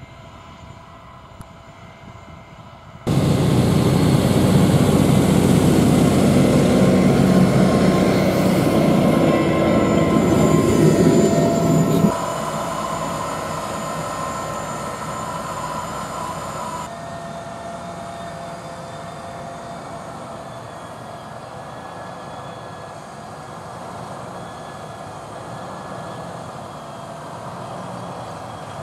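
Fendt 826 Vario tractor running steadily under load, driving a front-mounted spading machine and a rear precision seeder through the soil. It is quieter for the first few seconds, much louder for about nine seconds, then softer again.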